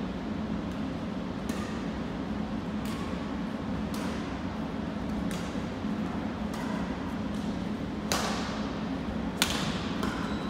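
Badminton rally: rackets striking a shuttlecock back and forth, about seven sharp hits at a steady pace roughly every second and a half, the last two the loudest, each ringing briefly in the gym hall. A steady low hum runs underneath.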